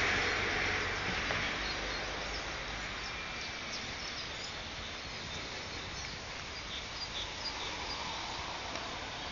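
Outdoor background noise, a steady hiss-like hum that fades over the first couple of seconds, with faint, short, high bird chirps now and then.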